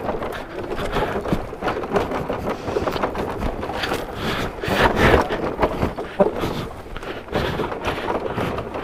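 Crash-damaged scooter being pushed by hand over a rocky dirt path, engine off: steady crunching and scraping of its tyres and of footsteps on gravel and stones, with a few louder knocks about five seconds in.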